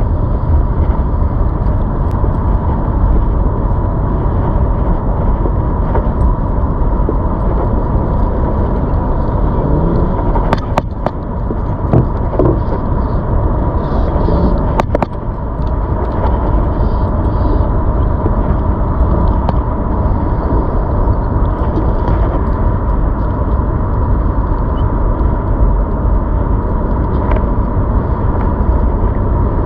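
Steady rumble of wind and road noise while riding a ZOOZ electric bike, with a thin, steady whine throughout. A few short knocks come near the middle.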